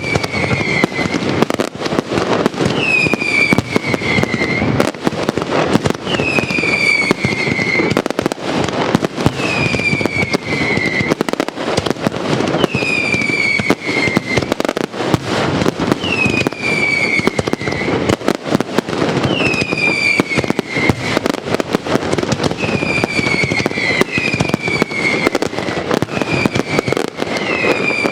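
Castillo fireworks display: a dense, unbroken barrage of bangs and crackling. A whistle falling in pitch recurs about every three seconds over it.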